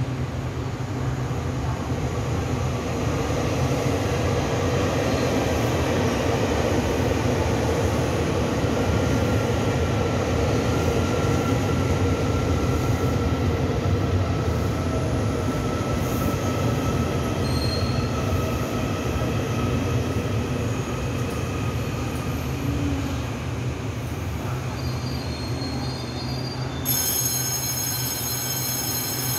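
Taiwan Railway EMU800 electric multiple unit pulling into the station and slowing, a steady rumble of wheels on the rails that swells through the middle and eases off. A thin whine falls slightly in pitch as it slows, and a group of high steady tones starts abruptly near the end.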